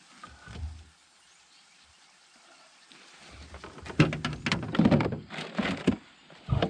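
Knocks and clatter of gear being handled in a fishing boat: a dense run of sharp knocks starting about three seconds in, the loudest about a second later, with another short burst near the end.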